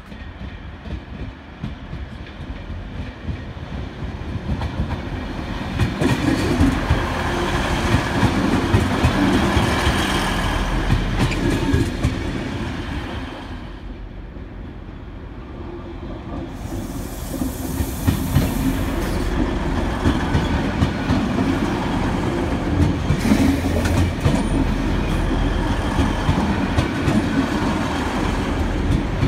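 DB class 612 diesel multiple unit running along the platform, its engines rumbling and its wheels clacking over the rail joints. The sound swells twice, with a lull a little past the middle.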